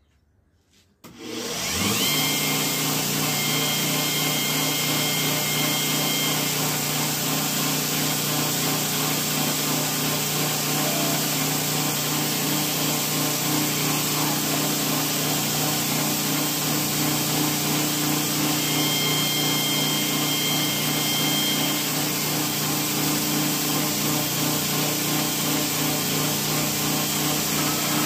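Belt grinder switched on about a second in, its motor spinning up to speed with a rising hum and then running steadily, with the knife's bearing-race steel blade held against the moving abrasive belt to sharpen its edge.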